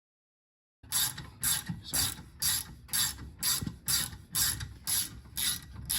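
Ratchet wrench with an H7 hex bit clicking in rhythmic back-swings, about two a second, as it spins out a brake caliper guide-pin bolt. The clicking starts about a second in.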